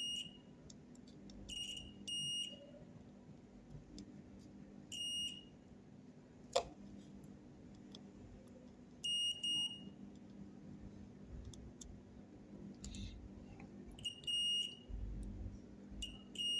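Multimeter continuity beeper giving short high beeps, about seven at uneven intervals, each time the probes touch two points that are connected. There is one sharp click about six and a half seconds in, over a faint steady low hum.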